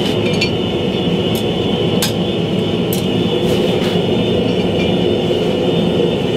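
Gas forge burner running steadily with a thin high whistle, and several light metal clinks as a piece of leaf spring steel is handled near the anvil.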